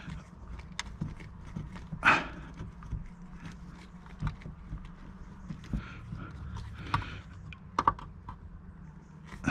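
Handling noise of a cable being worked through a rubber wiring boot: scattered small clicks and rubbing of rubber and plastic, with a louder rasping squeak about two seconds in and two sharp clicks close together near the end.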